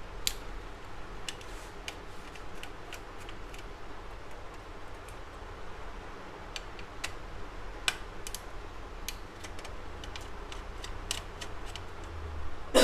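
Scattered light clicks and ticks of small parts and hand tools being worked as the circuit board of an HP LaserJet P1007 laser printer is freed for removal, over a low steady hum. A cough right at the end.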